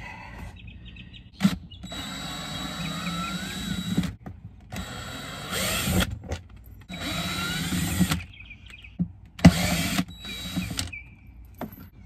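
Cordless drill with a T20 Torx bit backing out the subwoofer's speaker screws. It runs in four short spells with brief pauses between them, one spell per screw.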